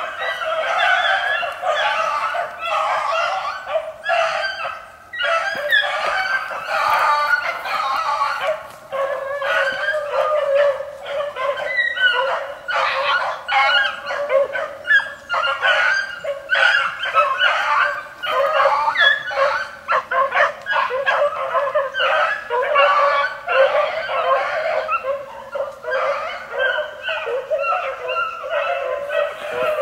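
A pack of young beagle pups baying and yipping together as they run a rabbit's trail, many voices overlapping without a break.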